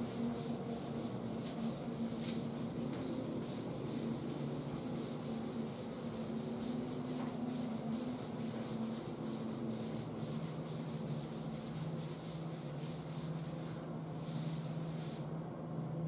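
Blackboard duster wiping chalk off a chalkboard in quick, repeated rubbing strokes, which stop about a second before the end.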